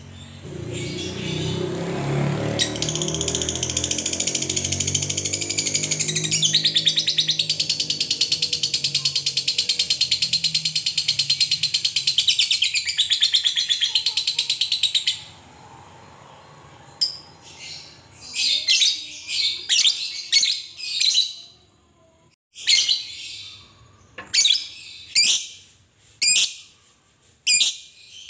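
Fischer's lovebird giving a long, very rapid rattling chatter (the 'ngekek' call) for about fourteen seconds, then breaking into a string of short, sharp chirps, roughly one or two a second.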